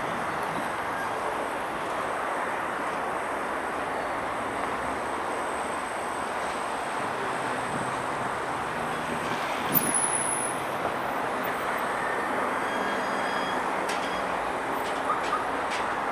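Railway wagons rolling with a steady grinding noise, a brief high squeal about ten seconds in, and a few sharp clicks near the end.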